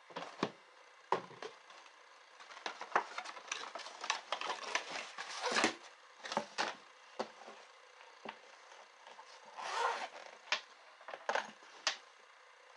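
Irregular rustling, scraping and light knocks of cardboard and paper packaging being handled on a wooden desk, then the zip of a sunglasses clamshell case being pulled open.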